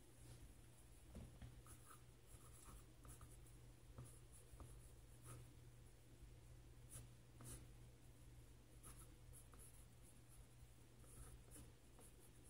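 Faint scratching of a colored pencil sketching on sketchbook paper, in short irregular strokes, over a low steady hum.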